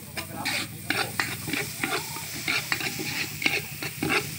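Food sizzling in a hot pan, with a metal utensil stirring and scraping against the cookware in irregular clinks and scrapes, several a second.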